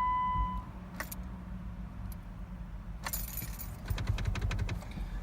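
A car's steady electronic warning beep cuts off within the first second, followed by a single click, then keys jangling with quick rattling clicks from about three seconds in, over a steady low hum. No engine cranking is heard: the car will not start.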